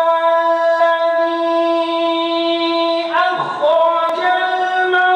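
A man's chanted Quran recitation in the melodic tajweed style: one long, high held note for about three seconds, then a brief wavering ornament a little past the middle, settling onto a new, slightly higher sustained note.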